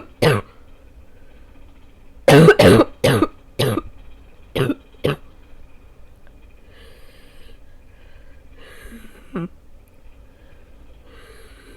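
A person's barking cough: one loud cough at the very start, then a fit of about six hard coughs in quick succession over about three seconds. It is the lingering cough left after about two weeks of illness.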